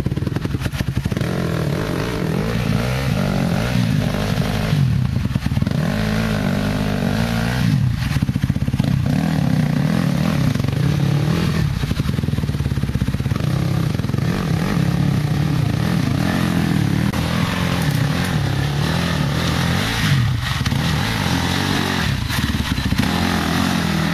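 Enduro dirt bike engine running at low speed, revving up and down unevenly over and over as it is worked through rough ground, with a few brief drops in revs.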